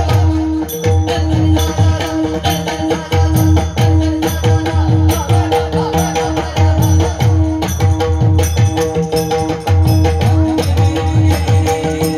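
Instrumental passage of a Marathi devotional bhajan: a repeated drum beat with jingling, rattling percussion over steady held notes.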